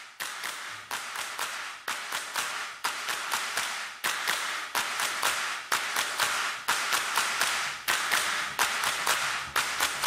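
Music: a rhythmic run of sharp clap-like percussion hits, several a second, with almost no bass.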